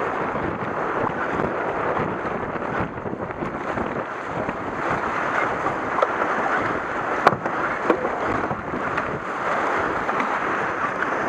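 River water rushing and splashing around a K1 racing kayak as it is paddled through a shallow rapid, with paddle strokes churning the water and some wind noise on the microphone. A few sharp knocks come about six to eight seconds in.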